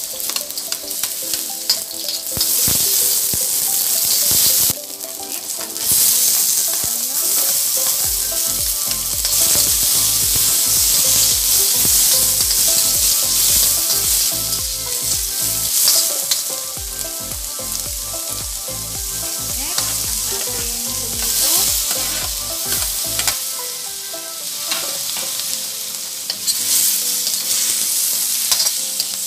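Garlic, onion and tomato sizzling in hot oil in a stainless steel wok, stirred with a metal ladle that scrapes against the pan. The sizzle drops briefly about five seconds in, then comes back.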